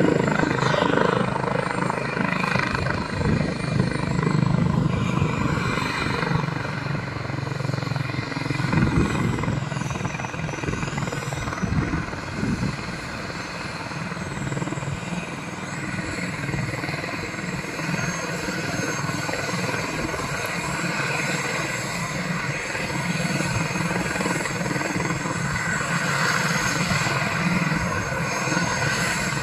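Airbus H145 helicopter running on the landing pad, its main rotor turning and its twin turbines running. It is loudest in the first few seconds, then settles to a steady level.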